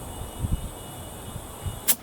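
Air hissing steadily into an ATV tire from a compressor as it is inflated to seat the bead, with a few low thumps and one sharp snap just before the end.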